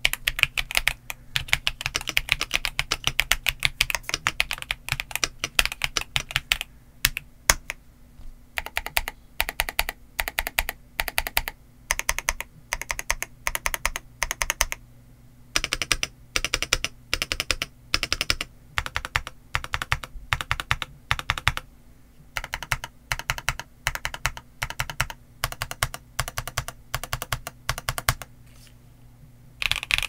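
RK S98 mechanical keyboard with pre-lubed Pale Green switches and double-shot ABS Cherry-profile keycaps being typed on. A fast, continuous run of keystrokes for the first several seconds gives way to slower separate presses and short clusters, with a brief pause near the end.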